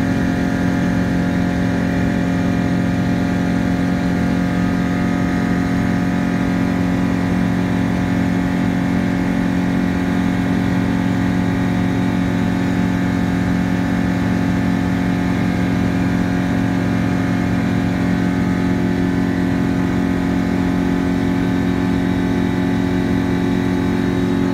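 Rotax 912 flat-four engine and 75-inch Whirlwind propeller of a RANS S-6S running steadily at climb power, heard inside the cockpit.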